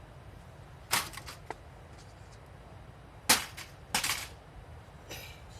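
Sharp clanks of charcoal dropped into a metal fire-extinguishing pot (hikeshi tsubo): a knock about a second in, a louder one just past three seconds, another about four seconds in, then a short scraping rustle near the end.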